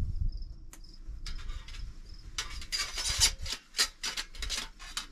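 Small folding sheet-metal camp stove being folded up by hand, its metal panels scraping and rubbing together in a run of rasping strokes, loudest around the middle. Faint insect chirps at the start.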